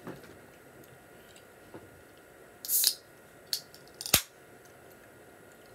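Aluminium Mountain Dew can being opened: a single sharp crack of the pull tab a little over four seconds in, the loudest sound. Before it come a short burst of rustling noise and a light click.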